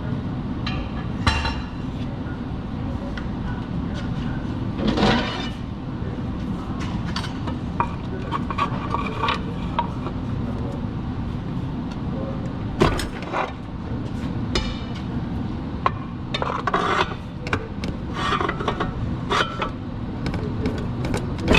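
Scattered metallic clinks and knocks from hand tools working on a car transmission, over a steady low hum. The louder knocks come about a second in, around five seconds in and around thirteen seconds in, with a run of smaller clinks near the end.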